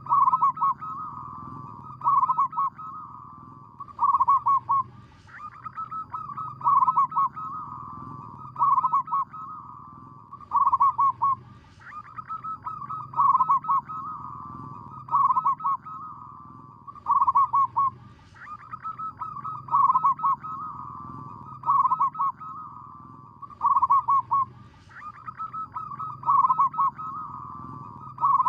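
Zebra dove (perkutut) cooing: a short phrase of rapid soft notes that builds to a cluster of louder rolled coos, repeated about every two seconds, over a faint low hum.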